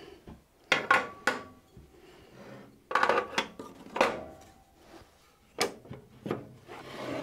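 Metal tools and pieces of wood being moved about and set down on a workbench: an irregular run of knocks and clinks, a few of them ringing briefly like metal.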